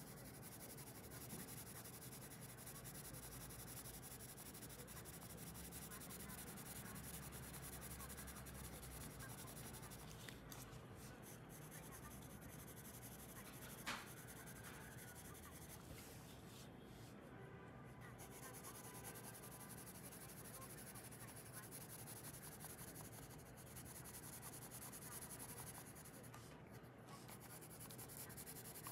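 Green coloured pencil shading on paper: a faint, steady scratching of pencil lead on the page, with one short click about halfway through.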